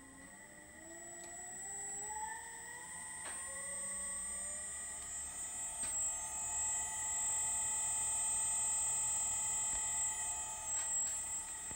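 Electric servo motor driven by a freshly repaired Lenze EVS9327-ES servo drive on a test run. Its electrical whine rises in pitch in small steps over the first few seconds as the motor speeds up, then holds steady. A constant high whine sits above it, with a few faint clicks.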